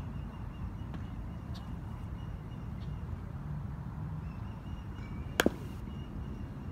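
Softball bat hitting a pitched softball once, about five seconds in: a sharp crack with a brief ringing tail.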